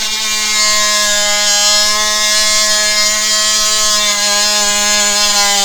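DeWalt DCS356 20V brushless oscillating multi-tool running steadily, its blade cutting into a deck board with an even, buzzing drone.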